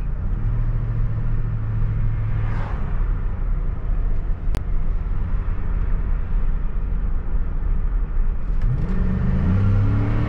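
Cadillac Northstar 4.6 L V8 heard from inside the car while driving: a steady engine hum with road noise, then the engine note rises under throttle about eight and a half seconds in. A single sharp click about halfway through.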